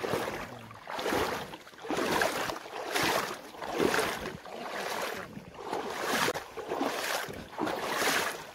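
River water sloshing in regular surges, about one a second.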